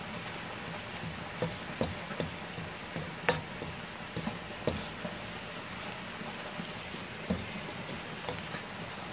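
Crushed dried chilli flakes frying in oil in a pan as they are stirred: a steady sizzle with scattered sharp clicks and pops.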